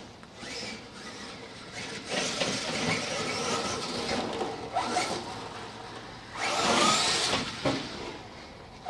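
Kyosho DMT VE 1/10-scale brushless electric RC monster truck driving on grass, its motor whine and tyre noise rising and falling in surges as it speeds up and slows. The loudest surge comes about seven seconds in.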